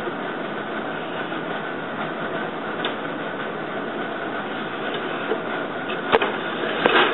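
Steady rushing background noise, with a sharp wooden click about six seconds in and a few light clatters just before the end as a shuttle is handled in the open shed of a floor loom.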